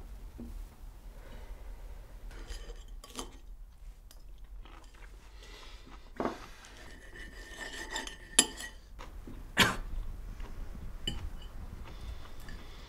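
Cutlery clinking and scraping on plates and dishes during a meal, with several sharp clinks that ring briefly, the loudest a little past the middle.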